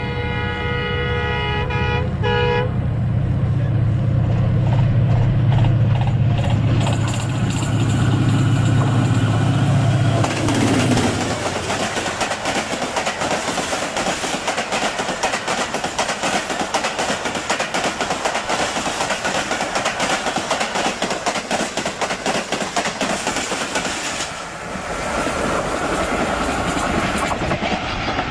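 Passing train: its horn sounds for the first two and a half seconds, then the locomotive's low rumble builds and passes. About ten seconds in, a long, loud rush and rapid clatter of carriages going by at speed takes over.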